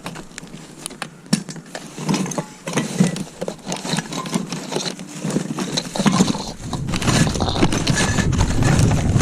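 Scrap metal and tools clanking and rattling as they are handled, with many short knocks and clicks. A low rumble builds from about six seconds in.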